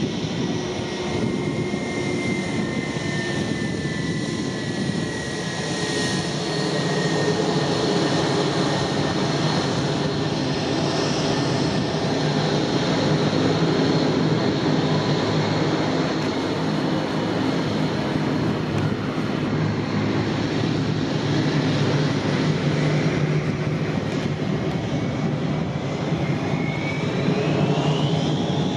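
Airbus A320's IAE V2500 jet engines running as the airliner taxis, a steady engine hum with a whine that sinks slightly in pitch over the first few seconds. Near the end the whine climbs steeply as the engines spool up to takeoff thrust.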